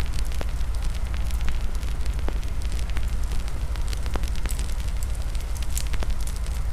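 Wood campfire burning, with frequent sharp crackles and pops over a steady low rumble.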